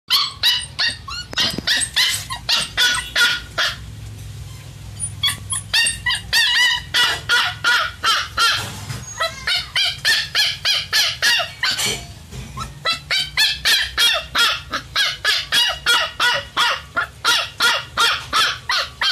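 One-month-old aspin puppy barking over and over in short, high-pitched yaps, a few a second, with a brief lull about four seconds in.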